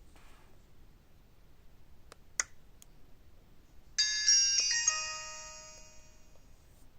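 Alcatel OT-1016D mobile phone playing its shutdown tone through its own speaker: a chime that starts suddenly, its notes stepping downward in quick succession, then rings out over about two seconds. A few faint clicks come shortly before it.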